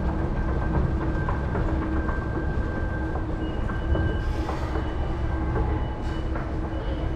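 Tokyo Metro Namboku Line subway train running: a steady low rumble with thin, steady whining tones above it, one higher tone coming in about halfway through.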